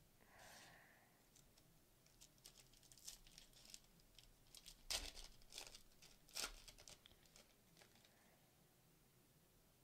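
Foil wrapper of a trading-card pack being torn open and crinkled by hand: faint, crisp crackling with two sharper rips around the middle, fading out near the end.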